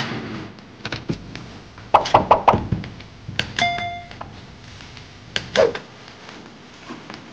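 Scattered knocks and thumps of a golden retriever's paws scrabbling against an SUV's plastic rear bumper, a quick cluster of them about two seconds in, with a short ringing chime a little after the middle.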